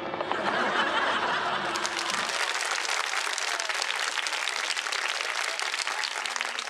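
A crowd applauding: dense clapping that becomes crisper and fuller about two seconds in.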